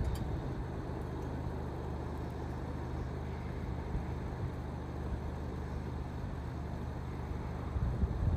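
Steady low engine rumble with a hum, holding an even level throughout, with wind buffeting the microphone near the end.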